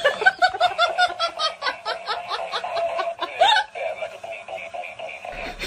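Laughter: a rapid run of short, pitched 'ha' pulses, about five a second, ending in a rising squeal about three and a half seconds in.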